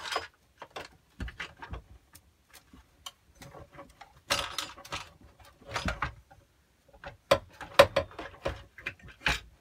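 Irregular metal clicks, taps and knocks as a homemade steel exhaust pipe is handled and propped into place against a small scooter engine and frame. The knocks come in scattered clusters with short quiet gaps.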